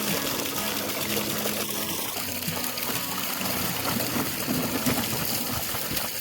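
Water pouring and trickling steadily as an animal waterer is filled.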